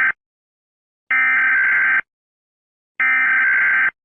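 Emergency Alert System SAME header: digital data bursts about a second long, each followed by about a second of silence. The tail of one burst is followed by two more full bursts.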